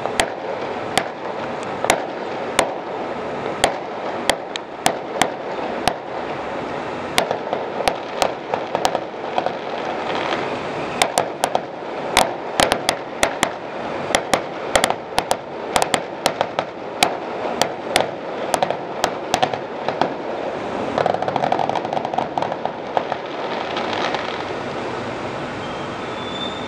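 Fireworks going off: a long run of sharp bangs and pops over a steady noisy background, coming thickest in the middle and thinning out near the end.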